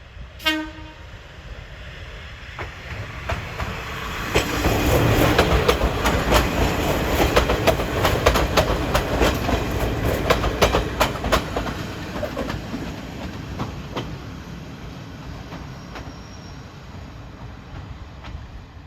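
A KiHa 200-series diesel railcar sounds one short horn blast, then the two-car train rolls past with a rumble and the clickety-clack of its wheels over rail joints, loudest midway and fading after.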